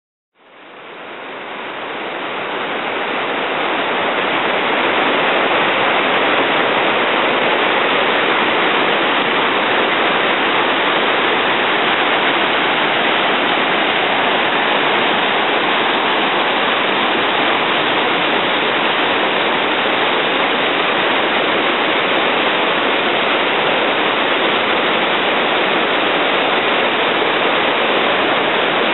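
River rapids and a waterfall rushing: a steady noise of white water that fades in over the first few seconds, then holds level.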